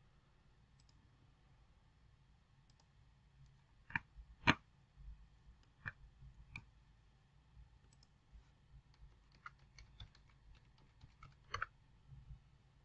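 Faint, scattered clicks of a computer mouse and keyboard, two sharper ones about four seconds in and a quick run of them near the end.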